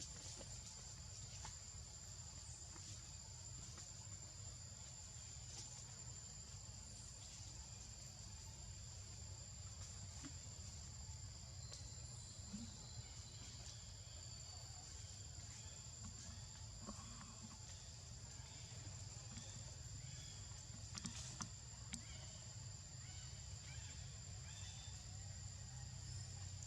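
Faint, steady high-pitched insect drone, a continuous chirring with no breaks, over a low rumble and a few small ticks.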